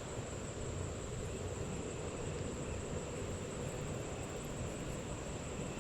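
Steady rushing outdoor noise, with a thin, constant high tone over it.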